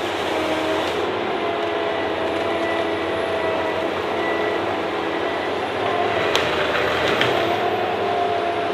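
Heavy tree-cutting machine running under load: a steady engine drone with a steady whining tone over it, growing slightly louder about six seconds in, with two sharp clicks near the end.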